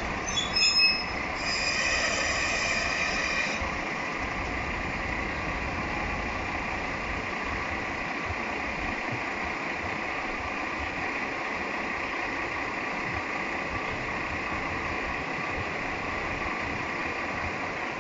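Kanto Railway KiHa 0 series diesel railcar coming to a stop: a few short high brake squeals about a second in, then a longer squeal lasting a couple of seconds. After that the railcar's diesel engine runs on steadily at idle.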